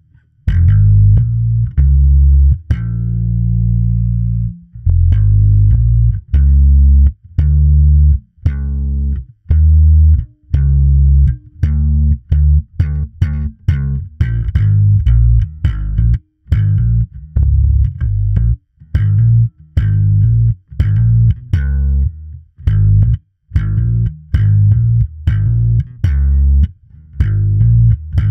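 Electric bass (a Harley Benton P-Bass Shorty) played through a Gallien-Krueger MB150 combo amp simulation. It plays single plucked notes, a few long held ones at first, then shorter notes at about one to two a second with brief gaps between them.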